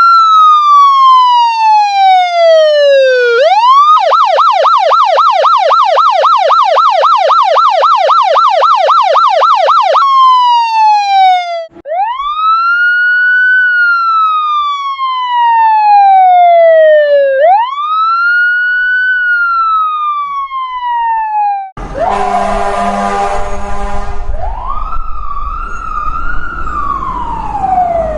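Fire engine siren sounding: slow wails rising and falling, a fast yelp of about five cycles a second for some six seconds, then more long wails. Near the end an emergency vehicle horn blasts for about two seconds over engine rumble, and the siren wails again over the rumbling engine.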